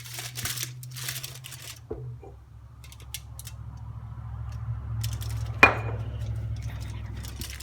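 Kitchen handling noises: rustling and light clicks, then one sharp clack about five and a half seconds in, over a steady low hum.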